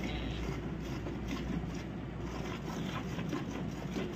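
Hand milking of a Holstein Friesian cow: milk squirting into a steel bucket in faint, irregular strokes over a steady low rumble.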